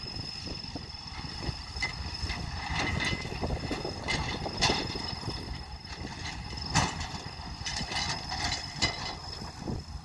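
Diesel engine of a tracked hydraulic excavator running under load as it swings and dumps its bucket, with a steady high whine over the low rumble. Scattered sharp knocks and clanks come every two seconds or so, a couple of them louder.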